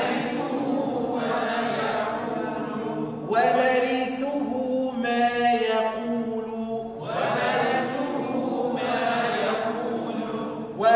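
Quranic recitation chanted by a single voice in long melodic phrases with drawn-out, held vowels. One phrase carries on from the start, a new one begins about a third of the way in, and another just past halfway.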